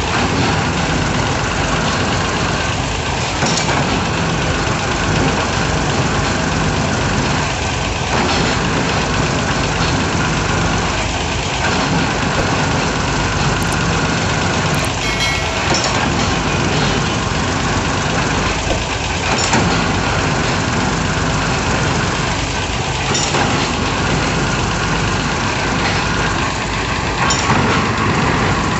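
Diesel engine of a hydraulic piling rig running steadily, with a recurring change in its sound every three to four seconds and a few sharp clicks about halfway through.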